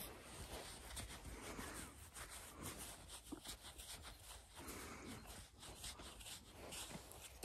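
Faint, irregular rustling and soft scuffs from close handling: a gloved hand rubbing a Zwartbles sheep's wool.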